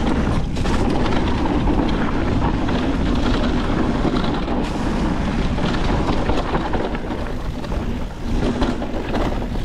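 Wind buffeting the microphone while a Niner WFO e9 mountain bike rolls down a rocky dirt trail, its tyres crunching over dirt and rocks and the bike rattling and clicking over the bumps.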